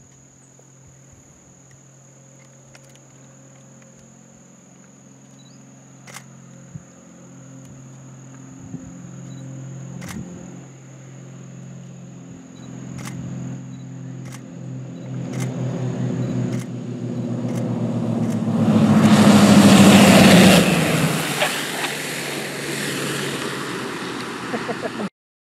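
Twin-engine piston aircraft on approach and landing: a steady propeller drone grows louder, peaks with a rush of noise as the plane passes close about 19 seconds in, then fades as it rolls away and cuts off suddenly near the end. A thin steady high insect tone runs under the first half.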